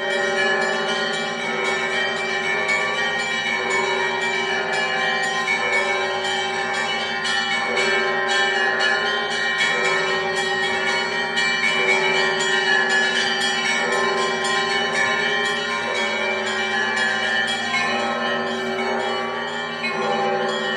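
Orthodox church bell peal (zvon) from the bells of the Great Lavra Bell Tower: smaller bells struck in quick, continuous succession over the steady hum of the larger bells.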